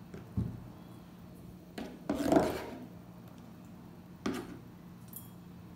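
Chopped poblano pepper being swept by hand across a plastic cutting board and dropped into a stainless steel bowl: a soft knock at first, a scraping rustle about two seconds in, and a sharp knock a little after four seconds, over a steady low hum.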